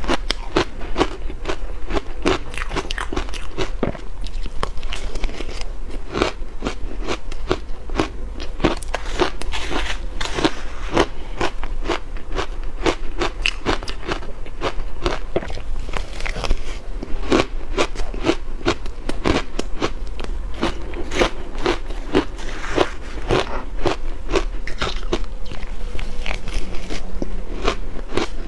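Close-miked chewing of shaved blender ice with milk powder: a steady, dense run of crisp, crackling ice crunches.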